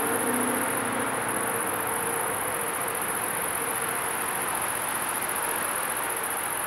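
Steady, high-pitched chirring of insects in the roadside grass, over a low, even background hum.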